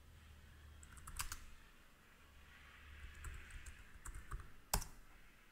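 Typing on a computer keyboard: a few scattered, faint keystrokes, with one louder click near the end.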